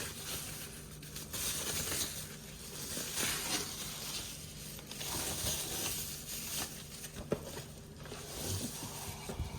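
Packing material rustling and crinkling in uneven bursts as a new boot is handled and unpacked, with one sharp click about seven seconds in.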